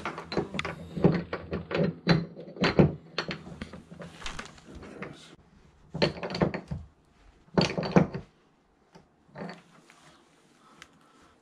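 Knocks, clicks and scraping of hands working at the drain flange in an acrylic bathtub, seating the flange in its bed of plumber's putty. A close run of knocks fills the first five seconds, then two louder clusters come about six and eight seconds in.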